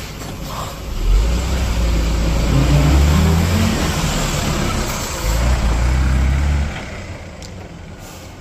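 Natural-gas (CNG) express bus engine pulling away close by, its note rising as it accelerates. It eases off briefly about five seconds in, pulls again, then fades as the bus moves off.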